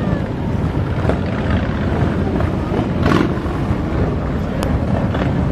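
Many motorcycle engines rumbling together as a mass of bikes rides past, with a brief louder surge about three seconds in.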